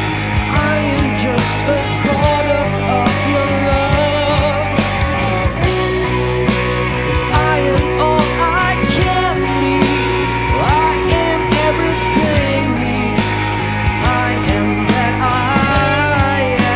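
Rock band playing an instrumental stretch live: steady drums and sustained bass under a lead line with bending pitch.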